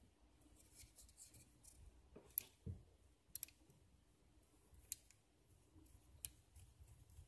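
A small screwdriver driving a screw into the plastic motor housing of a toy hexacopter: faint scratching, a soft knock and a few sharp plastic clicks.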